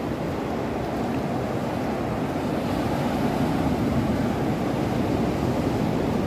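Ocean surf breaking on a sandy beach, a steady rushing wash of waves, with wind rumbling on the microphone.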